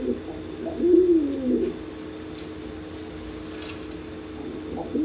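Domestic pigeons cooing: one rising-and-falling coo about a second in and another starting near the end, over a steady low hum.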